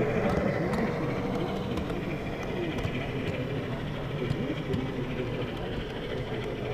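On30 model train rolling along its track, heard from a camera riding on one of its cars: a steady rumble with faint wheel clicks, under the murmur of voices in a large hall.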